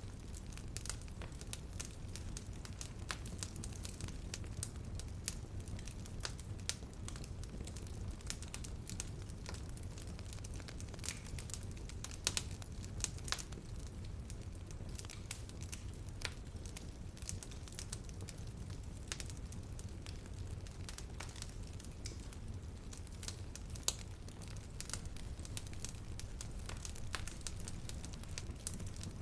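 Wood fire in a fireplace crackling, with irregular sharp pops over a steady low rumble.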